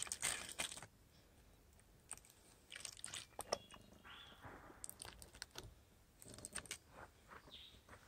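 Aluminium foil crinkling in several short, crisp bursts as a foil packet is pulled open by hand.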